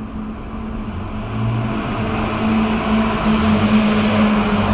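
Airport apron noise: a steady machine hum with a low rumble under it, and a rushing noise that swells and grows louder from about halfway through.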